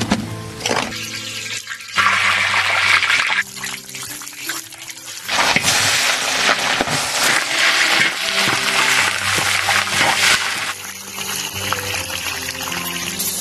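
Water splashing and pouring as a bamboo basket of pig bones is dipped into a large steaming wok, in two long spells, the second about five seconds long. Background music with low held notes plays underneath.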